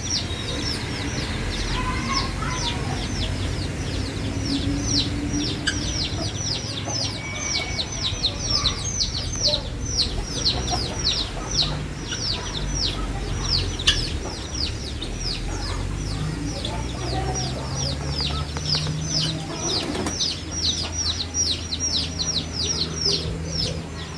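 Guinea fowl keets peeping without pause: a constant stream of short, high calls, each quickly falling in pitch, several a second.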